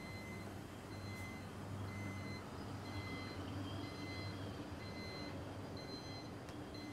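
Repeating high electronic beep, about once a second, like a reversing or warning beeper, over a steady low machinery hum.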